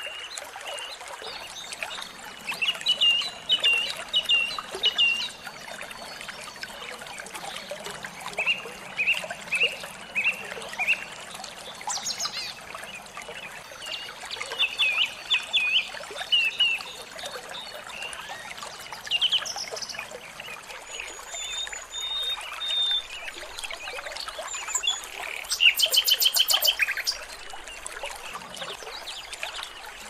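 Small songbirds calling in short runs of sharp, repeated chirps over a steady trickle of running water. Near the end comes a loud, fast rattling trill.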